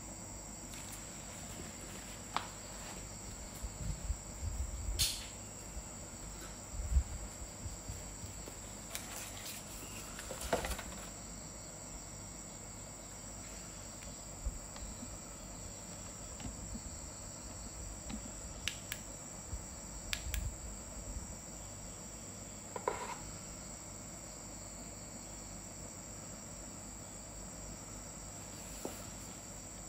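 Steady high-pitched cricket trill, with scattered knocks and clicks from the flashlight and its packaging being handled.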